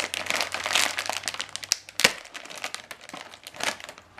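Plastic potato-chip bag crinkling as it is handled and opened, with a sharp crack about two seconds in.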